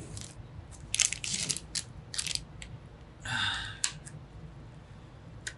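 Crinkling and clicking of plastic packaging being handled: a run of sharp crackly clicks, then a short rustle about three seconds in.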